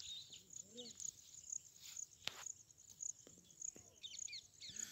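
Faint insects chirring in a steady, high, pulsing trill, with a few short bird chirps and a single sharp click about two seconds in.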